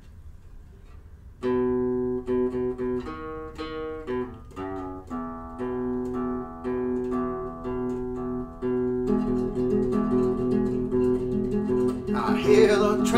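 Classical guitar playing a song intro as clearly separated plucked notes over a repeating bass line, starting after about a second and a half of quiet. The playing thickens with strummed chords from about nine seconds in, and a man's voice starts singing near the end.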